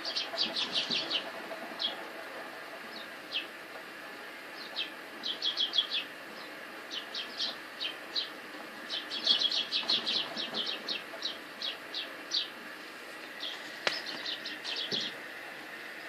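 Small birds chirping: short, high chirps repeated in quick clusters of several at a time, with brief pauses between clusters.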